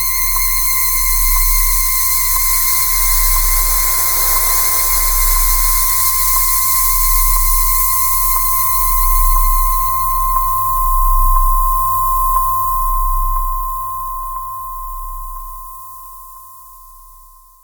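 Synthesized horror ambience sound effect: a steady high-pitched tone over a deep pulsing hum and hiss, with faint ticks about once a second. It fades out near the end.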